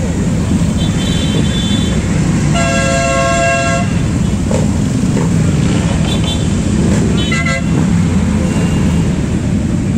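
Engines of a motorcycle parade running steadily, with horns honking several times: short toots about a second in, a long blast about three seconds in, and more around six and seven seconds in.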